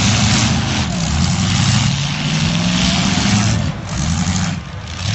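Demolition derby cars' engines running hard, their pitch rising and falling as they rev, over a loud wash of noise; the level dips briefly twice near the end.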